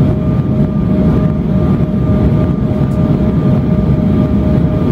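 Steady jet airliner cabin noise during descent: an even rush of engines and airflow, strongest in the low range. A steady whine holds one pitch over it.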